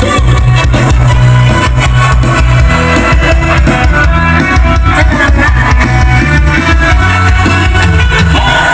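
Rock-style music with guitar and drums played loud through an outdoor PA system of 15-inch subwoofer cabinets and 12-inch mid-range speakers, with a heavy, steady bass.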